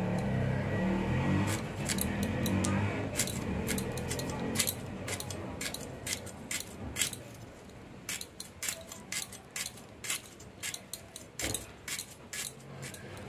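A crisp red radish being cut on a boti, pushed against the fixed upright blade: a quick, irregular run of sharp little snaps, about two or three a second, as each slit is cut into the root.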